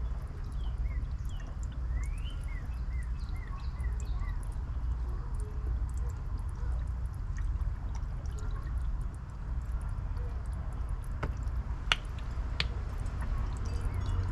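Water bubbling and dripping in a bucket of worm-casting compost tea as an air pump blows air through clear tubing into it, over a steady low hum. A few sharp clicks come about eleven to thirteen seconds in.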